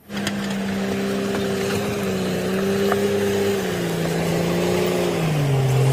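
Komatsu crawler bulldozer's diesel engine running steadily under load as the blade pushes broken concrete and earth, its note stepping lower twice in the second half.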